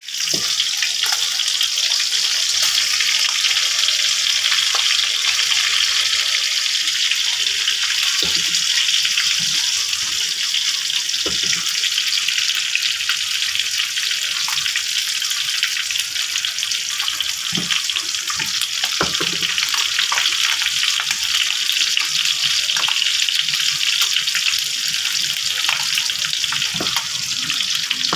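Pieces of fish frying in hot oil in a pan: a steady sizzle with fine crackling and the odd soft pop.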